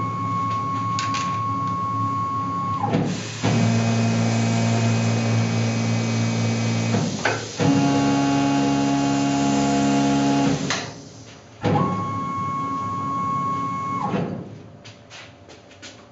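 Tormach PCNC 1100 spindle driving a self-reversing tapping head with a 1/4-20 tap, making steady whines. The spindle spins up with a whine. The tapping head drives the tap in with a heavier gear whine, clicks over about seven seconds in, and runs in reverse at a slightly higher pitch to back the tap out. The first whine then returns and winds down near the end.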